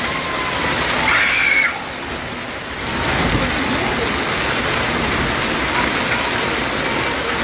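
Hail and heavy rain pelting a paved street: a dense, steady hiss of impacts that dips briefly about two seconds in.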